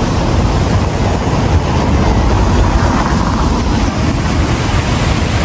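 Wind buffeting a phone microphone outdoors: a loud, steady rumbling noise, heaviest in the low end.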